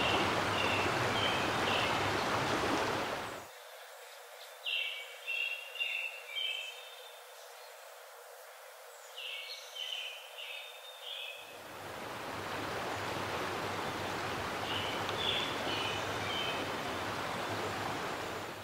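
Nature ambience: a steady rush like running water, thinning to a fainter hiss for several seconds in the middle, with birds chirping in short bursts.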